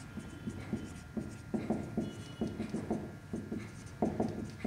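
Marker pen writing on a whiteboard: a run of short, quick strokes.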